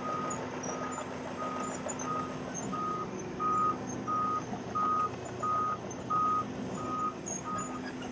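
Wirtgen 210Fi cold milling machine reversing: its backup alarm beeps steadily about one and a half times a second over the drone of its diesel engine.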